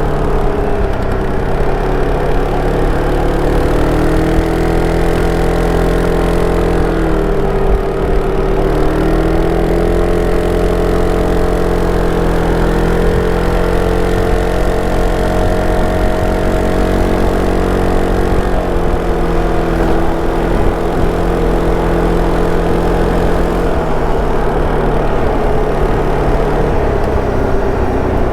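SYM Cruisym 300 scooter's single-cylinder four-stroke engine running through its stock exhaust, its pitch dipping and rising a few times as the engine speed changes.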